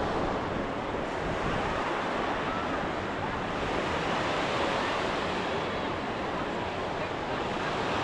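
Ocean surf breaking and washing up the shore: a steady rush of waves.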